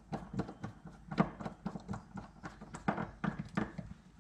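A hand screwdriver tightening small screws on a Suzuki LT185 carburetor, giving a run of irregular clicks and taps of varying strength.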